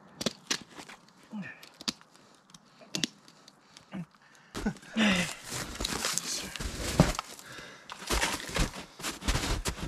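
Snowshoe bindings being unfastened: scattered sharp clicks and strap snaps, then from about halfway a denser run of rustling, crunching and tearing noises as the straps are pulled loose and boots work free and shift on the packed snow.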